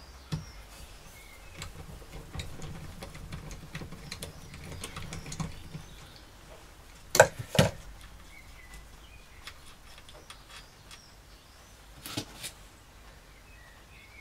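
A ratchet clicking in quick fine ticks as a loosened crankcase bolt is wound out of a Honda 400/4 engine's crankcase. This is followed by two sharp knocks, the loudest sounds, about seven seconds in, and two lighter knocks about twelve seconds in.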